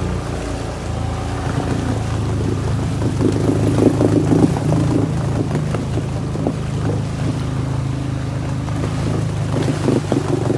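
ATV engine running steadily at low speed while the quad wades through a shallow muddy creek, with water splashing and sloshing around the wheels; the splashing is heaviest about three to five seconds in.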